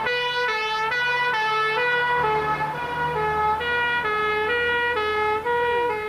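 Fire engine's two-tone siren, alternating rapidly between a high and a low note, over the low rumble of the engine as it sets off on an emergency call.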